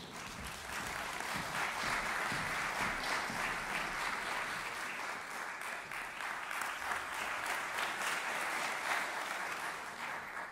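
Concert-hall audience applauding: dense, steady clapping that builds over the first second and dies away at the end, as the singer and pianist come on stage.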